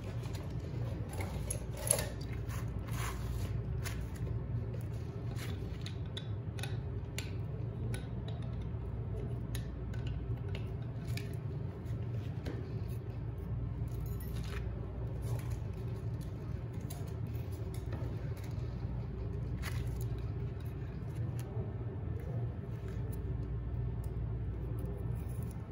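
Scattered metal clicks and light scraping from a hand-held floor scraper as its steel blade is handled and slid into the scraper head, with one sharper click about two seconds in. A steady low hum runs underneath.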